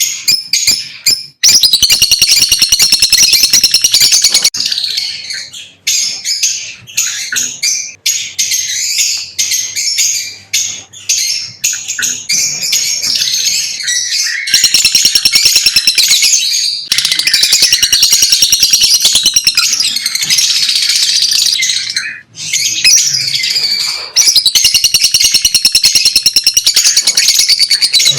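Lovebirds chattering: a dense stream of rapid, high-pitched chirps that comes in loud bouts, with sparser, quieter stretches in between.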